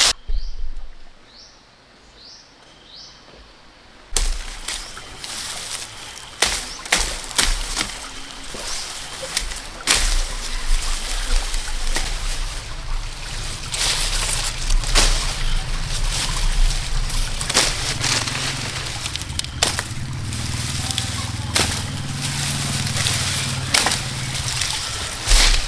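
Water sloshing and splashing, with many sharp knocks, after a few quiet seconds. A low drone joins about halfway through.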